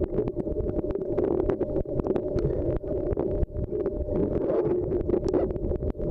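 Muffled underwater sound from a camera moving through a shallow river: a dense low rush of water with many small, irregular clicks and knocks.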